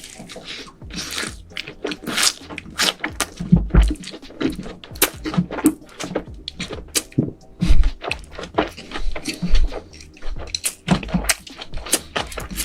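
Close-miked eating: a person chewing and crunching big mouthfuls of food, with many irregular wet mouth clicks and crunches and a few low thuds.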